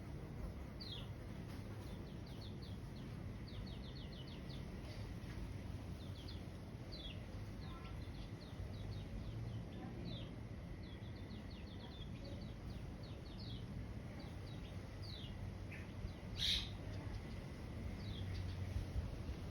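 Birds chirping: many short, high chirps that slide downward, in quick runs, with one louder call about sixteen seconds in, over a low background hum.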